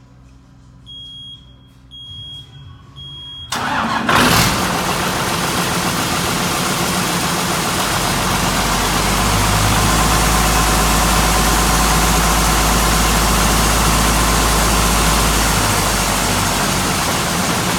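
Three short high beeps about a second apart, then the diesel engine of a trailer-mounted Global Pump dewatering pump cranks and starts on a remote command, settling into a steady, loud run at its warm-up speed.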